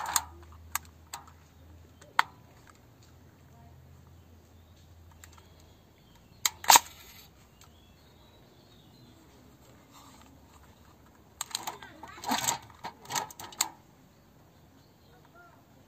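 Metal clicks and knocks from handling a Salut medium-format camera body while it is stripped and its winding knob worked: a few light clicks at first, one sharp click about seven seconds in, and a quick run of clicks near the end.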